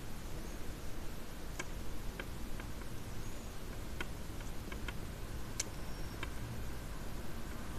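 Steady low background noise with about eight light, irregularly spaced clicks, the sharpest a little past halfway, and two faint short high chirps.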